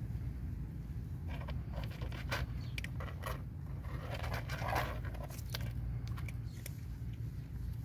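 Cats crunching dry kibble: a scatter of short, sharp crunches and clicks over a steady low rumble.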